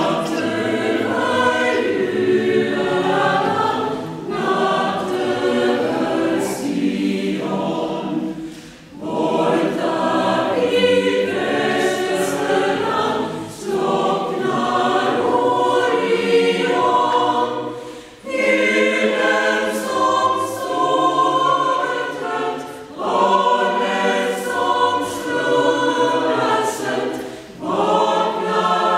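Mixed choir of women's and men's voices singing in sustained phrases, each about four to five seconds long, with a short break between them.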